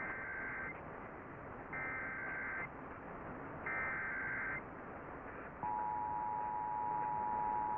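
Emergency Alert System SAME header: three short bursts of buzzing digital data tones about a second apart, followed about five and a half seconds in by the steady two-tone EAS attention signal. Together they mark the start of a Required Monthly Test. Heard through an AM radio receiver, thin and with steady background hiss.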